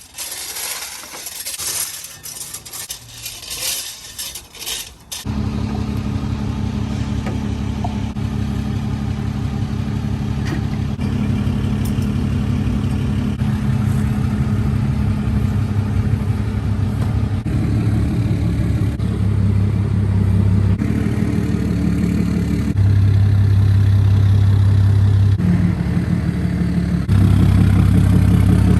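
Rough, scraping noise for a few seconds, then an engine starts running about five seconds in and keeps going steadily, getting louder and changing pitch in a few steps.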